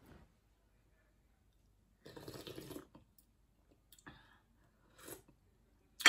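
A person eating: a slurp of sour-curry broth from a spoon about two seconds in, then a few soft chewing clicks.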